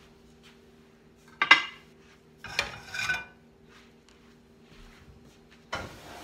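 Metal cookware clattering as a frying pan is lifted off a gas stove's grate: a sharp clang with a short ring about a second and a half in, two lighter clinks around three seconds, and a noisier scraping clatter near the end, over a faint steady hum.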